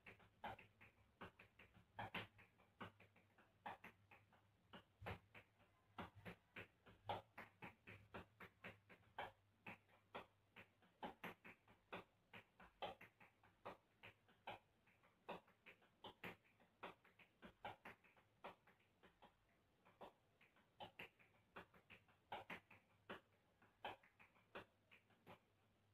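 Tap shoes' metal taps striking a tiled floor in hoofing footwork: quick runs of sharp clicks, several a second, in uneven rhythms with louder accented strikes.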